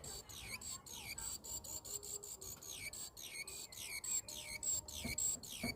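Small bird giving a rapid run of high chirps, each falling sharply in pitch, with a couple of low knocks near the end.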